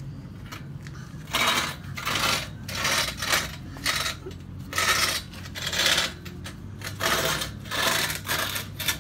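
A removed car exhaust system (heat-wrapped steel pipes) being dragged across a concrete floor in short, repeated tugs: metal scraping and rattling, a bit more than one pull a second, starting about a second and a half in.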